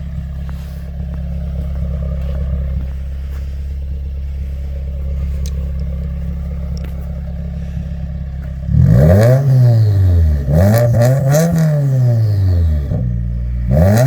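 2015 Subaru WRX's turbocharged 2.0-litre flat-four through a Remark R1-Spec exhaust, idling steadily, then blipped twice in quick revs that rise and fall, settling back to idle near the end.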